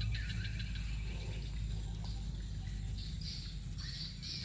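Birds chirping in short calls, a cluster near the start and another late on, over a steady low rumble.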